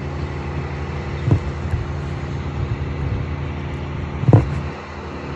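Steady low engine drone of nearby construction machinery, with wind on the microphone. Two short thumps break through, about a second in and again, louder, about four seconds in.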